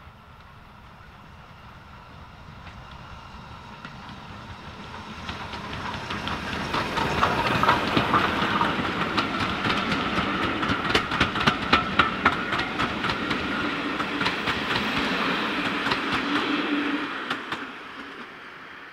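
Steam-hauled passenger train approaching and passing close by: the sound builds over several seconds, then the coaches' wheels click rhythmically over the rail joints as they go past, and it falls away quickly about seventeen seconds in.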